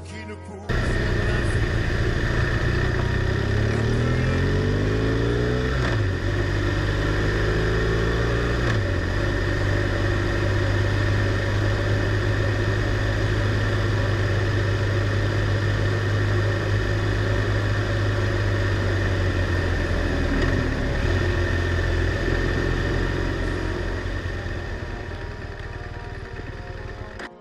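BMW R1200R LC's boxer twin engine riding under way: it starts abruptly about a second in, rises in pitch twice over the first nine seconds as the bike accelerates through the gears, then holds a steady cruise over a constant rush of air noise before fading near the end.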